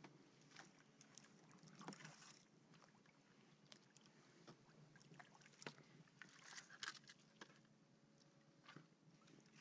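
Faint sounds of a kayak being paddled slowly through still floodwater: soft paddle splashes and drips with scattered light clicks and knocks on the hull, a little louder a couple of seconds in and again just past halfway.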